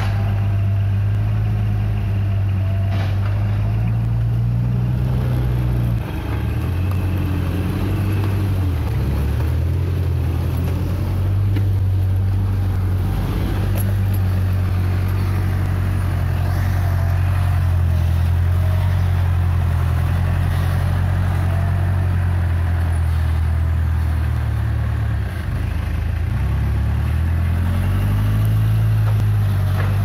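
Case 580M backhoe loader's diesel engine running under work, steady and loud, its engine speed shifting a few times with short dips about six seconds in and again near the end.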